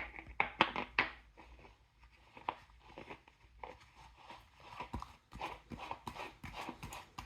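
Irregular clicks and light knocks of plastic parts being handled as a paint container is screwed onto a compressor spray-painting gun, busiest in the first second.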